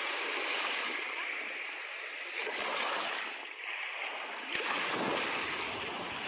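Small waves washing onto a sandy beach: a steady hiss that swells and fades, with a single sharp click about four and a half seconds in.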